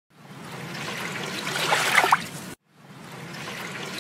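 Water trickling and splashing, swelling in level, then cut off abruptly about two and a half seconds in before fading back in.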